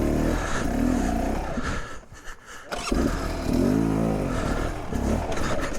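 Beta 300 RR two-stroke enduro dirt bike engine revving on and off the throttle. The sound drops away briefly about two seconds in, then comes back with a rev that rises and falls in pitch just before four seconds.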